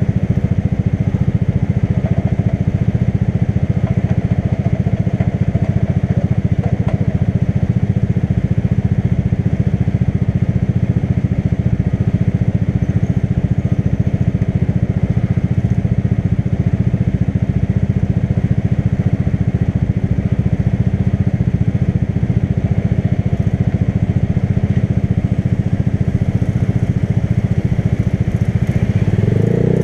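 Motorcycle engine running at a steady pitch while riding, with a dense low rumble; the engine note rises near the end.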